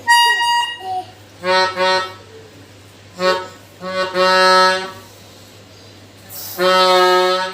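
Basuri telolet multi-tone bus horn sounding in a series of toots: a high note at the very start, two short blasts, then short blasts and two longer held chords of about a second each.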